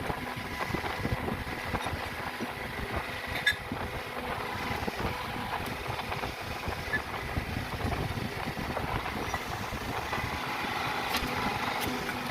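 An engine running steadily with a low rough rumble, with a few short sharp clicks over it, one a few seconds in and two near the end.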